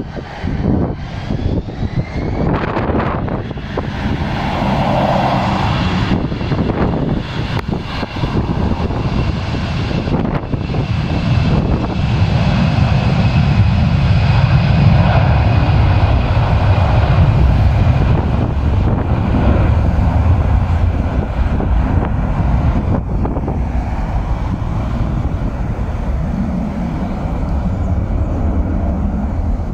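Airbus A320-family airliner's twin jet engines at takeoff thrust during the takeoff roll. A steady high whine runs over a broad rumble that grows louder from about the middle and then holds.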